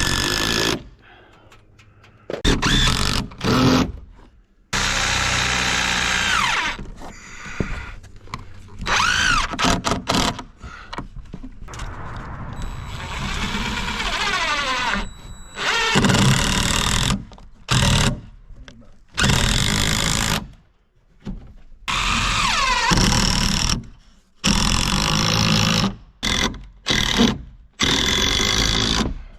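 Power drill run in repeated bursts of a second to a few seconds, its motor whine climbing and dropping as the trigger is squeezed and let go, typical of driving fasteners into wood framing.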